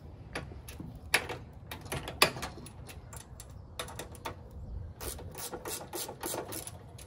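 Ratchet wrench clicking in short runs as the nuts on the bolts are tightened, with a couple of sharper clicks between one and two and a half seconds in.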